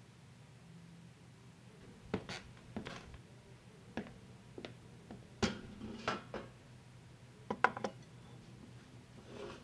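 A run of sharp knocks and clinks, the loudest near the end: a glass liquor bottle and a tumbler being handled and set down on a wooden table.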